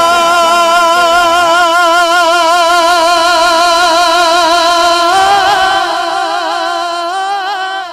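A naat singer's solo male voice holds one long sung note with a wide, fast vibrato. The note steps a little higher about five seconds in and grows softer near the end.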